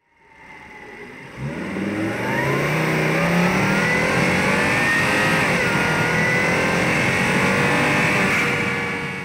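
Engine-bay recording of a 2007 Volvo XC70's 2.5-litre turbocharged inline-five. The revs climb from about a second and a half in, stay high and then ease off near the end.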